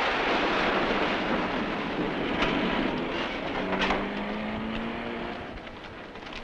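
A Pontiac car driving up and stopping at the kerb: a steady rush of engine and tyre noise that slowly fades as the car slows, with a few light clicks.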